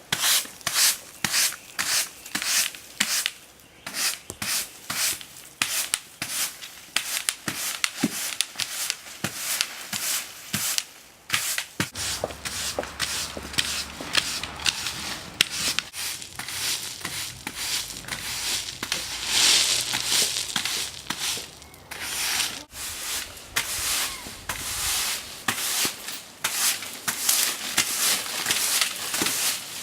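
Browns Tornado push broom sweeping a hard floor, its bristles scraping in quick, evenly repeated strokes, about two a second.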